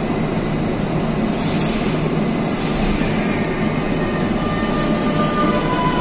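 Barcelona Metro train starting to pull out of an underground station: a steady rumble with two short hisses in the first half. A faint motor whine begins to rise near the end.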